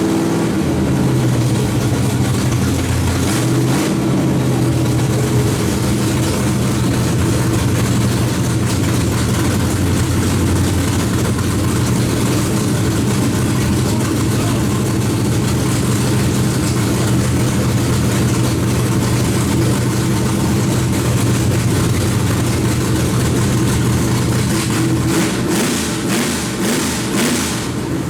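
Small-block Chevy race engine idling steadily, with brief revs in the first few seconds. A few sharp clicks near the end.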